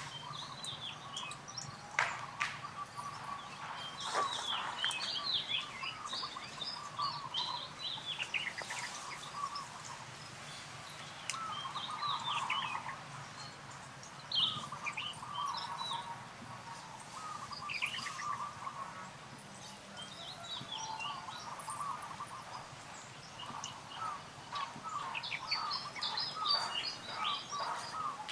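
Birds chirping and calling throughout, with several quick high notes and twittering phrases overlapping. A couple of sharp clicks come in the first few seconds.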